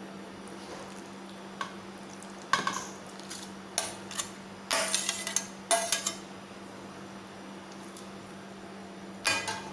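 A steel spoon scraping and clinking against a steel plate, pushing roasted eggplant off into a bowl: several short scrapes, the busiest about five to six seconds in, over a faint steady hum.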